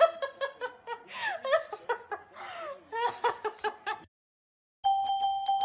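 A person laughing and giggling in high-pitched bursts for about four seconds. After a brief silence, chiming mallet-percussion music starts near the end.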